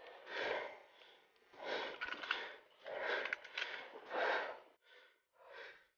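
A person breathing heavily close to the microphone: about six short, breathy breaths in a row, the last ones shorter and fainter.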